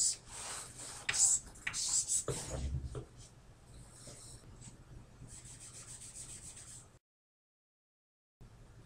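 Chalk writing on a blackboard: scratchy strokes and taps of the chalk, busiest in the first three seconds and lighter after. Near the end the sound drops to dead silence for about a second and a half.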